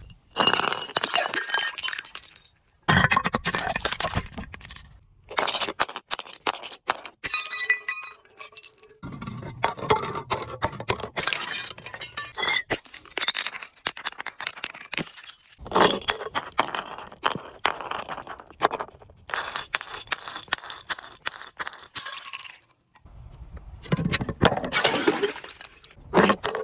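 Glass bottles breaking and being crushed: dense cracking and crunching with shards clinking and ringing, in a string of separate takes broken by short gaps.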